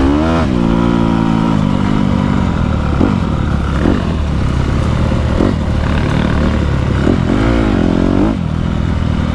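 Honda dirt bike engine running hard under way. The revs rise sharply about half a second in, then rise and fall several times as the throttle is worked, with a longer swell and drop near the end.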